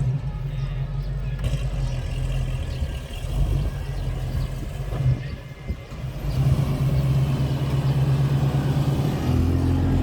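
1970 Dodge Challenger R/T's 440 big-block V8 running steadily. It dips and wavers for a few seconds in the middle, then settles back into an even, louder run.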